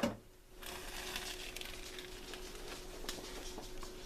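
Kitchen handling sounds while a hot cup is taken out of a microwave: a sharp click right at the start, then light taps and a faint hiss over a steady low hum.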